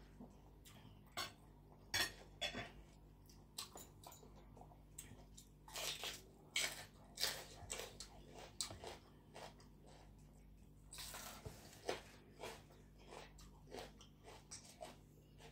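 Close-miked mouth sounds of someone chewing a mouthful of spicy papaya salad with chicken feet: irregular wet crunches and smacks, thickest about six to eight seconds in, with a short noisy rush about eleven seconds in.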